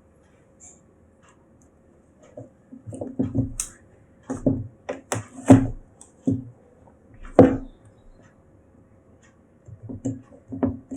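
Handling noises from a laptop being worked on: a string of short knocks and clicks as the replacement screen panel and the lid are moved and set in place, the loudest a few seconds in, with a few more near the end.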